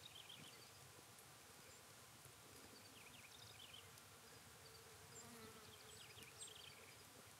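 Near silence: faint open-air ambience with a few soft, high chirps in short clusters about every three seconds.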